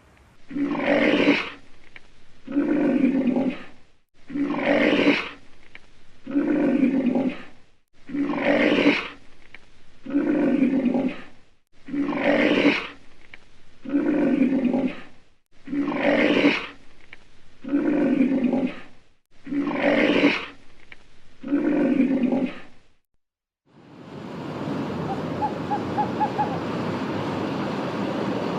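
A large animal calling in a long series of harsh, rasping roar-like calls, about one every two seconds, alternating stronger and weaker. It stops, and after a moment of silence a steady noise like wind or surf takes over.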